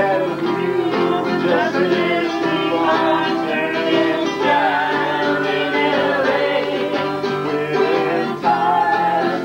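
Acoustic guitars playing with a voice singing along, a folk or country-style song.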